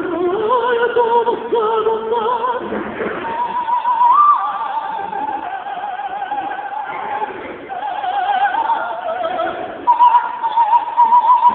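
Operatic female voice singing a wordless vocalise with wide vibrato over orchestral accompaniment: the line climbs near the start, holds high notes, steps up and then winds down, and near the end pulses quickly on a high note.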